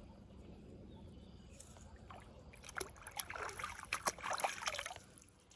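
Hands splashing and sloshing in shallow water, starting about halfway through, as freshwater mussels are scooped up off the muddy bottom.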